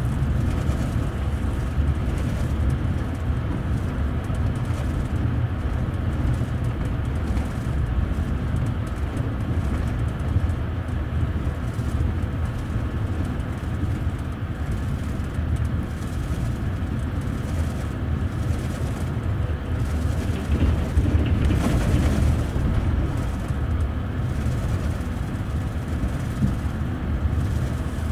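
Steady low running rumble of a moving double-decker passenger rail coach, heard from inside on the upper deck: wheels rolling on the rails. A brief louder, brighter swell comes about three quarters of the way through.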